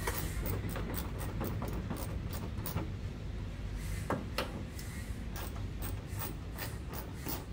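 Hand ratchet clicking in quick runs as 10mm bolts under a car's front bumper are undone, with two louder knocks about four seconds in.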